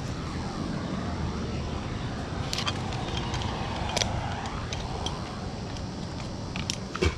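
Steady low rumble of a passing motor vehicle, rising and falling in pitch, with a few sharp clicks over it.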